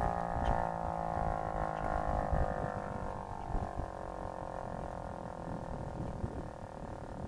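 Federal Signal 508-128 rotating outdoor warning siren winding down at the end of its full alert. Its tone slowly falls in pitch and fades as the rotor coasts to a stop, over a low rumble.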